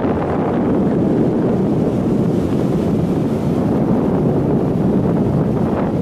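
Steady wind buffeting the microphone over the wash of surf breaking and running up the beach.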